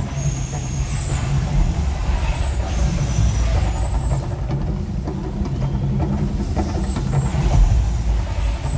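Artificial volcano eruption show: a loud, deep, steady rumble with the hiss and whoosh of gas fire jets flaring over the water.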